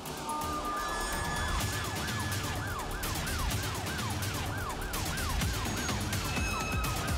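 A siren wailing up and down quickly, about two or three sweeps a second, starting about a second in, over a music track with a steady beat.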